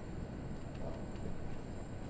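Steady low background rumble, like distant traffic, with a faint thin high whine held throughout.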